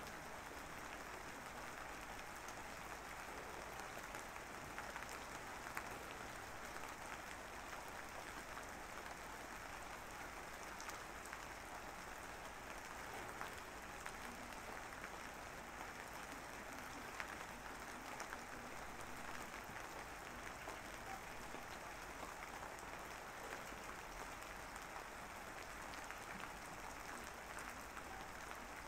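Steady, even hiss with scattered faint crackles, holding at one level throughout.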